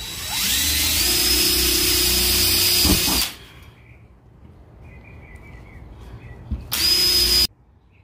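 Cordless drill running against the refrigerator door's sheet metal at the drip-tray mounting marks. A run of about three seconds winds up to a steady whine and stops, and a second short run of under a second follows near the end.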